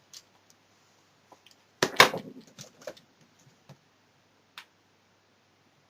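Hair curlers and styling tools being handled: scattered light clicks, with a short clatter about two seconds in and a few single ticks after it.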